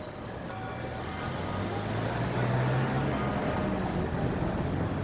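Street traffic with a motor vehicle's engine running close by, a low steady hum that grows louder about two seconds in and stays loud.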